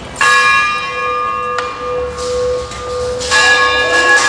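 Hindu temple bell being rung: struck just after the start and again about three seconds later, each strike ringing on with several clear, steady tones.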